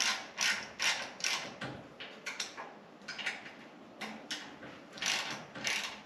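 Hand ratchet wrench clicking in short back-and-forth strokes, about two a second with small pauses, tightening the bolts of the mini bike's handlebar clamps.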